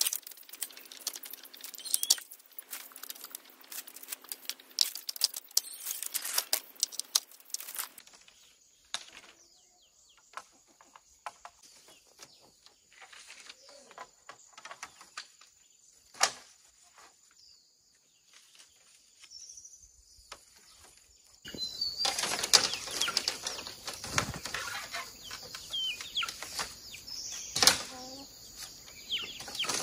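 Split bamboo strips rustling, clacking and rattling against each other as they are handled and set into a bamboo fence. The clicks and rattles come in busy stretches, with a quieter, sparser spell in the middle.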